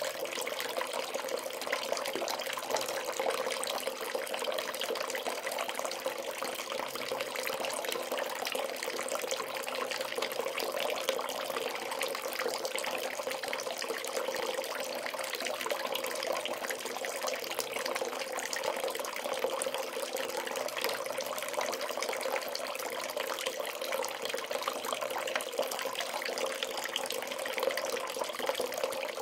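Bath tap running steadily into a tub, a continuous even splashing rush of water.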